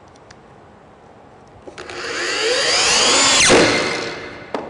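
Power drill driving a wood screw into a sawhorse leg: the motor spins up with a rising whine for about a second and a half, then winds down quickly. A short click near the end.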